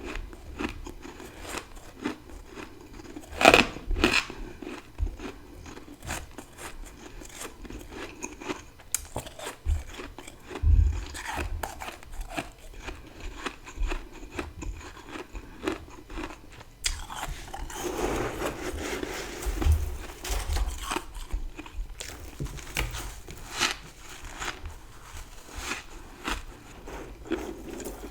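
Dry freezer frost crunching as it is scooped with a big spoon and bitten and chewed in large bites. It is a string of sharp crunches, the loudest about three and a half and eleven seconds in, with a denser run of crunching between about eighteen and twenty-one seconds.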